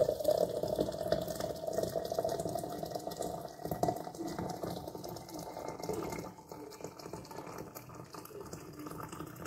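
Hot water poured steadily from a kettle into a teapot of tea, the pour rising slowly in pitch as the pot fills.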